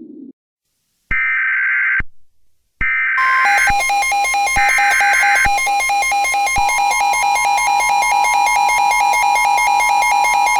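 Emergency Alert System signal: three short bursts of the SAME digital header's screeching data tones, then, overlapping the later bursts, a pulsing two-tone attention signal that keeps sounding.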